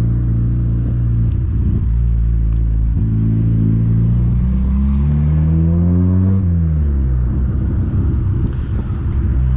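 Sixth-generation Honda Civic's engine and exhaust heard from inside the cabin with the windows open. The car has no catalytic converter, only a resonator (intermediate muffler) in the pipe. It drones steadily while cruising, rises in pitch as the car accelerates about five seconds in, then drops back about a second and a half later and settles.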